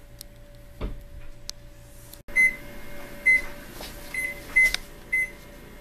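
A Samsung electric range's touch-pad control panel beeps as its keys are pressed: five short, high beeps, each one a key press registering on the panel. A single dull knock comes about a second in, before the beeps.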